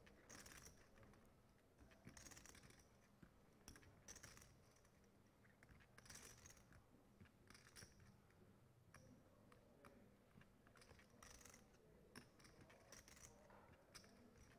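Faint, irregular clicking and clattering of clay poker chips being handled at the table, in short rattles a second or two apart.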